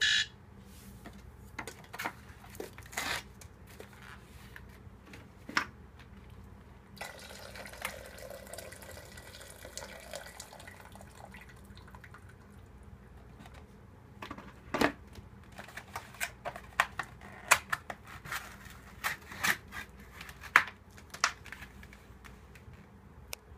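Hot water being drained from a Nissin UFO instant yakisoba cup through the drain holes in its lid into a kettle, a steady splashing pour lasting several seconds. Before and after it come scattered sharp clicks and knocks of the plastic cup and lid being handled.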